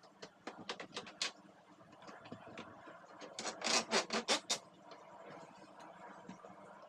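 Small clicks and knocks of parts being handled, then a quick burst of about six loud scrubbing strokes a little over three seconds in.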